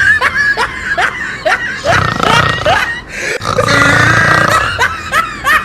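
Comic snoring, a rasping snore in followed by a run of short rising whistles out, about three a second; the cycle starts again about three seconds in.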